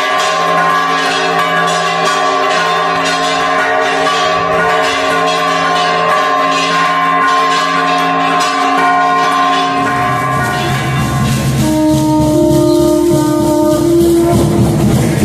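Church bells ringing, struck over and over so that their tones hang on and overlap. About ten seconds in they give way to music with bass, guitar and drums.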